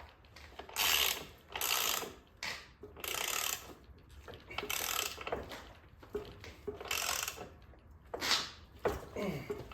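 Ratchet wrench worked in repeated strokes: six or seven short runs of ratchet clicking, each about half a second long. It is tightening hardware on the dirt bike's rear end once the chain adjusters are set.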